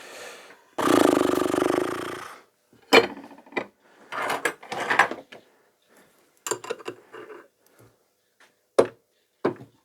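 Workshop tool sounds on a motorcycle engine case: a steady rattling burst of about a second and a half, then a string of sharp metal knocks and clinks at irregular intervals.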